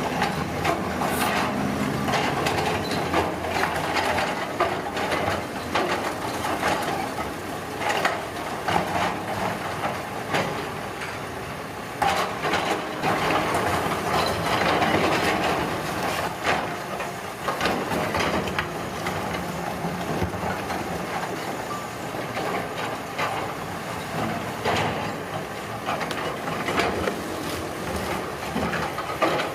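Heavy road-construction machinery working: diesel engines running under a dense clatter of knocks and clanks. The sound changes abruptly about twelve seconds in.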